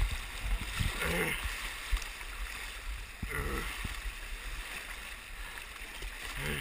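River rapids rushing and splashing over a camera held at the water's surface, with a few louder swishing surges and low thumps as the water washes over it.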